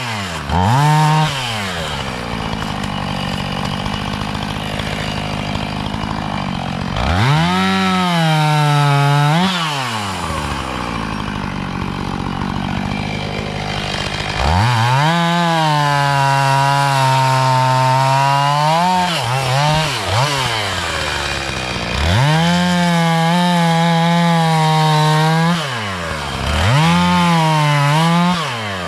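Two-stroke chainsaw revved to full throttle about five times, each burst lasting a few seconds with the pitch sagging slightly under load as it cuts wood, and dropping back to idle between cuts.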